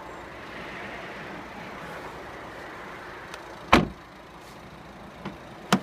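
Two sharp knocks about two seconds apart, with a fainter knock just before the second, over a steady background hiss.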